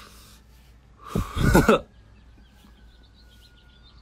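A man's short throat-clearing cough about a second in, with faint bird chirps in the background.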